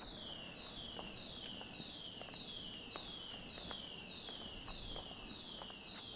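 An electronic alarm sounding a high falling tone over and over, nearly two sweeps a second, starting suddenly.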